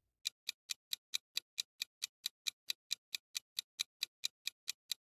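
Ticking-clock sound effect of a quiz countdown timer: a steady, even tick about four and a half times a second, counting down the time to answer.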